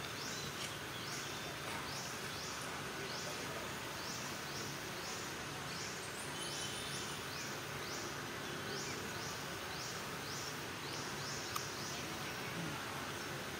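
A high, rhythmic insect call repeats about twice a second, each pulse a short falling buzz, over a steady forest background. A single sharp click comes near the end.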